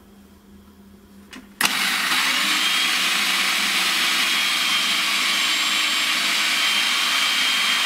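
Electric food processor switched on with a click about one and a half seconds in, then running steadily as its blade mixes biscuit crumbs with melted butter poured into the bowl.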